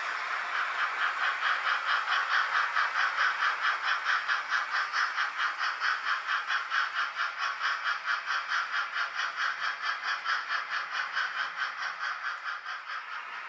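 H0 model steam locomotive's sound decoder playing a steam exhaust chuff through its small speaker, a quick even beat of chuffs as the engine runs past, fading near the end as it draws away.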